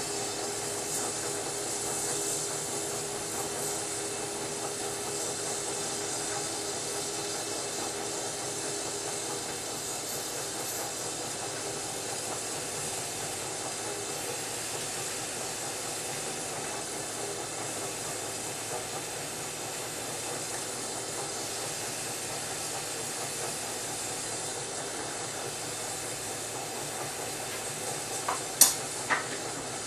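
Steady hiss of a hand torch's flame playing on glass turning in a glass lathe. A few sharp clicks come near the end.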